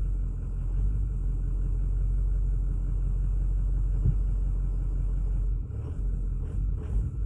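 Ford 6.4 L Power Stroke V8 diesel idling with a low rumble, then stumbling and running unevenly from about five and a half seconds in, with no throttle applied. This is the intermittent rough running of a truck that sometimes won't start and won't respond to the accelerator.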